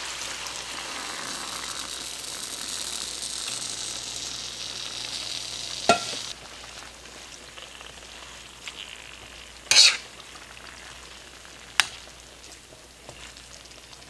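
Teriyaki sauce sizzling as it is poured into a hot cast iron wok of pork and vegetables; the sizzle drops sharply about six seconds in. Then a metal spoon stirs the food, with a few sharp clacks and scrapes against the wok, the loudest about ten seconds in.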